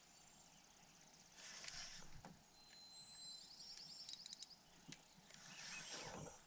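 Near silence: faint outdoor quiet with two soft rustles. About halfway through comes a faint, high, steady whistled note that breaks into a quick trill.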